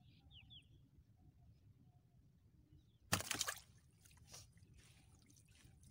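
A fishing net being handled by hand over the side of a wooden boat: mostly quiet, with one short sharp splash about three seconds in, then a few softer splashes and drips.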